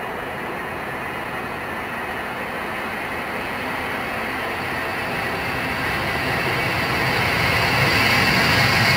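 Boeing 707-138B's four Pratt & Whitney JT3D turbofan engines at takeoff power. The jet noise grows steadily louder as the airliner accelerates down the runway on its takeoff roll, with the high hiss strongest near the end.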